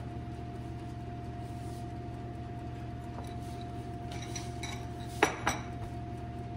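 A round metal lid handled with an oven mitt clanks twice, with a short metallic ring, about five seconds in. Underneath is a steady hum with a thin high tone from the countertop electric oven running.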